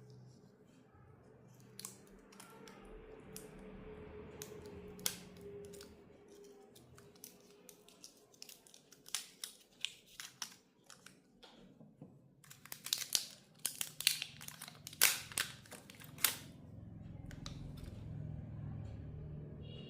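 A series of sharp clicks and snips from small hand tools working on a portable Bluetooth speaker, scattered at first and coming thick and fast for a few seconds about two-thirds of the way through.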